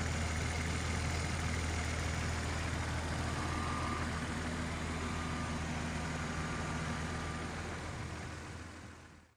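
Toyota Supra MK3's 7M-GTE turbocharged straight-six idling steadily. The sound fades out in the last second.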